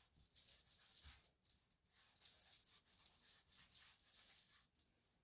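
Faint, rapid rustling and scraping as hands work over the wig's hair and lace.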